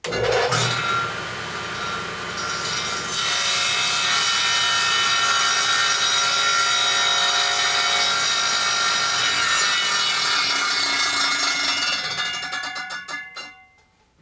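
Table saw started up, its blade then cutting through a wide board pushed across on a crosscut sled, louder while the blade is in the wood. Near the end the saw is switched off and winds down.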